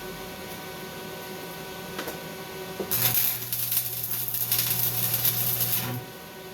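Stick-welding arc crackling and sizzling for about three seconds, with a steady low hum under it, then cutting off suddenly. A couple of sharp taps come just before the arc starts.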